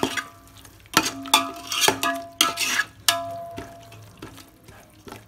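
Steel spoon stirring and scraping a frying onion-tomato masala in a metal pot, knocking against the pot's side so it rings, with the masala sizzling underneath. There are several sharp knocks in the first three seconds, then quieter stirring.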